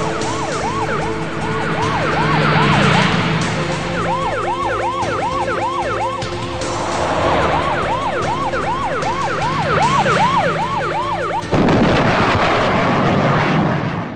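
Emergency-vehicle siren in a fast yelp, rising and falling about three or four times a second. About eleven seconds in, a sudden loud rush of noise cuts in over it.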